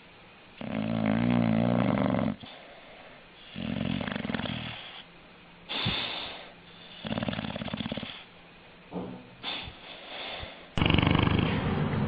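A dog snoring: a string of rasping snore breaths a second or two apart. The first breath is the longest and has a buzzing tone. A louder, rougher stretch of snoring begins near the end.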